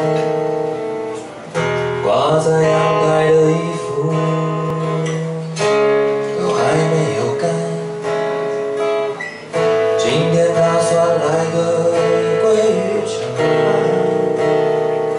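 Acoustic guitar playing the introduction to a song, chords changing every few seconds.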